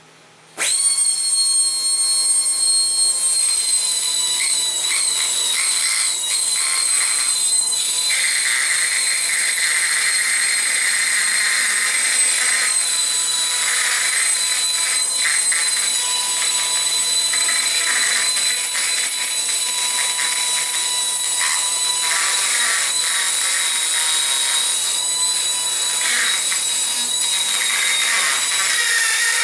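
Jet JAT-411 air-powered right angle micro die grinder starting about half a second in and running at a steady high whine, its oiled bit cutting into chrome-coated aluminum with a rough grinding noise that comes and goes.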